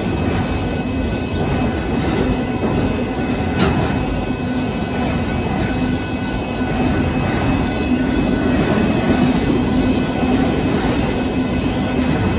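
Union Pacific autorack freight train rolling past at a grade crossing: a steady rumble and clatter of car wheels on the rails.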